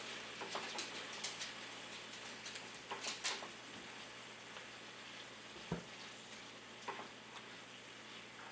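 Venison, noodles and vegetables in stir-fry sauce sizzling faintly in a pan while being stirred, with a few sharp clicks and scrapes of the stirring utensil against the pan.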